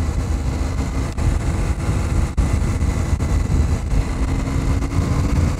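KTM 790 Adventure's parallel-twin engine running as the motorcycle is ridden, a steady low rumble. A faint steady note comes in during the second half.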